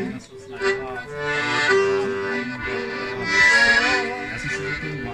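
Accordion playing a folk tune between sung verses: a melody of short repeated notes over held bass notes and chords.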